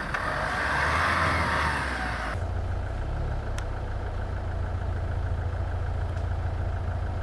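UAZ Patriot SUV's engine running, with a louder hiss over it for the first two seconds or so; the sound changes abruptly to a steady low idle that continues.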